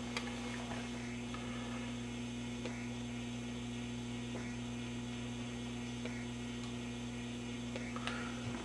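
Steady low electrical hum from a powered-up Admiral 24A12 vintage tube television.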